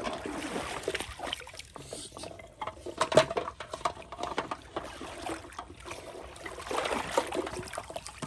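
Pond water splashing and sloshing, broken by scattered short knocks and clicks, the sharpest about three seconds in.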